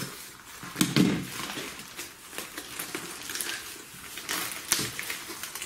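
Plastic freezer bag crinkling and rustling as it is cut along its edge and pulled open around a stack of comic books, with many small crackles and a dull knock about a second in.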